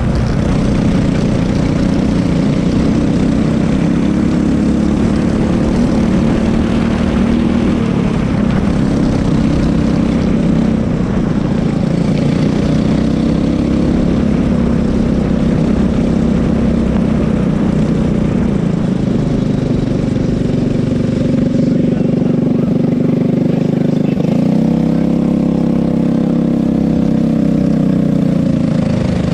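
Onboard sound of a cadet go-kart's small single-cylinder engine running at speed under heavy wind rush. Its note holds fairly steady, then rises sharply about three-quarters of the way through and eases off slightly.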